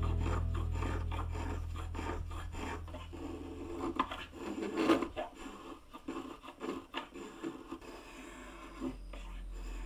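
Small brass spokeshave shaving a wooden spatula handle: a series of short, irregular rasping strokes as the blade peels off curls of wood, the loudest about four to five seconds in.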